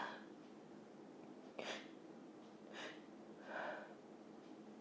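A woman's breathing just after a sneeze. The sneeze's tail fades out at the start, then come three short, soft, noisy breaths: a sharp one about a second and a half in and two gentler ones near the end.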